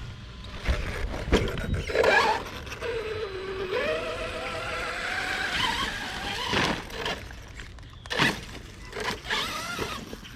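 Brushless electric motor of an Arrma Kraton 6S BLX RC monster truck whining under throttle. The pitch dips and then climbs for a few seconds in the middle, with a shorter rise and fall near the end. Several sharp knocks and clatters are heard from the truck being driven hard.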